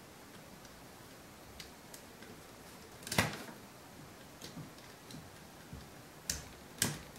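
Lego Technic plastic parts clicking and snapping as they are pressed together and onto the remote by hand: scattered light clicks, the loudest about three seconds in and two more near the end.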